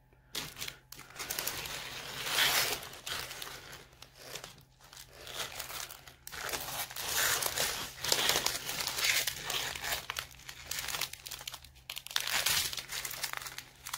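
Thin plastic bags of diamond-painting drills crinkling as they are handled, in irregular bursts with short pauses.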